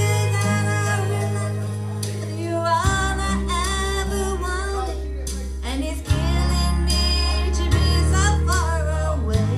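A woman singing a slow country ballad into a microphone over a backing track, with guitar and held bass notes that change every few seconds.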